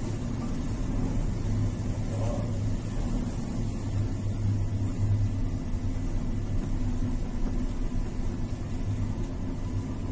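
Steady low rumble with a droning hum, typical of a ship's engines and machinery heard on board, under an even hiss of wind and sea noise.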